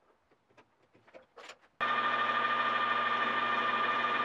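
Metal lathe turning a taper on the shank of an O1 steel drill rod: a steady run with a high, even whine. It starts suddenly about two seconds in, after a few faint clicks.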